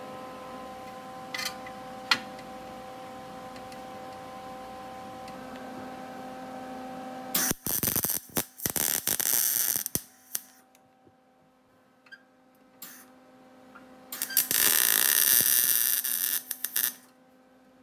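MIG welder arc running in two stretches of short, broken bursts, about halfway through and again near the end, each lasting around three seconds, as a steel bracket is tacked onto sheet metal. A steady hum runs underneath before the first stretch.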